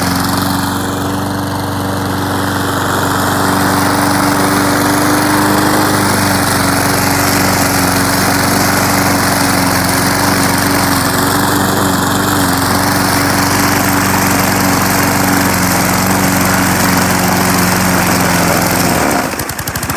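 Walk-behind gasoline lawn mower, the front of its deck cut away, running steadily under load as it cuts through tall grass. Just before the end the engine sound drops briefly in pitch and level, then comes back up.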